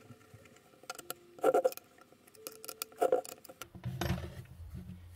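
A hex key turning a screw into a 3D-printed plastic fan cover: short creaks about every one and a half seconds as the screw threads in. Near the end comes a lower, duller rumble as the plastic body is handled.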